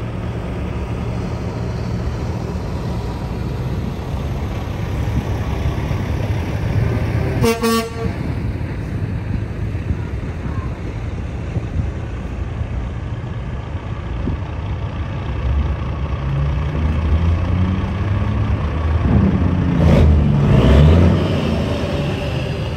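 Truck engines running steadily, with one short truck horn blast about a third of the way in. An engine grows louder near the end as a truck pulls past.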